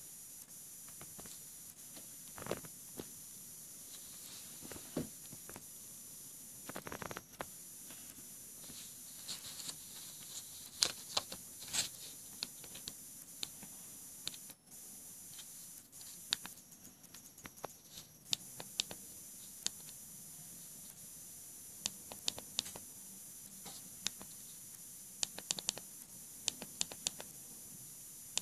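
Short, sharp clicks of a thumb pressing the keypad and navigation buttons of a Samsung Galaxy Golden flip phone, coming in scattered clusters over a steady hiss. There is a brief handling noise about seven seconds in.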